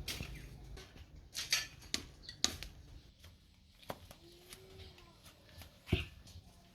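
A few scattered light clicks and knocks at irregular intervals, the sharpest about a second and a half, two and six seconds in.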